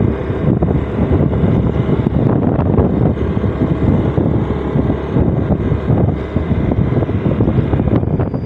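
Steady running noise of a vehicle travelling along a road, with wind buffeting the microphone.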